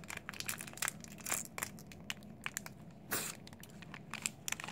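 Crinkling and crackling of a Men's Pocky snack package being handled and opened by hand, with one louder rip about three seconds in.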